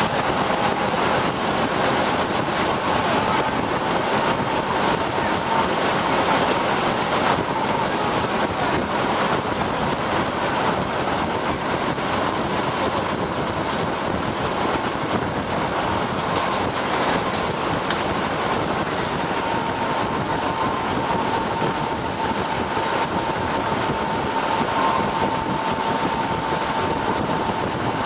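TU7A narrow-gauge diesel locomotive under way, heard from its cab: the V12 diesel engine running steadily, mixed with the wheels running on the track and a faint steady whine.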